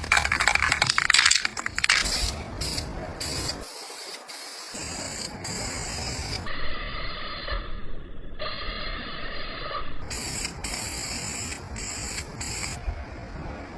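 Paint spraying onto a motorcycle engine during a repaint, with a strong hiss, in short spliced clips broken by mechanical clicks.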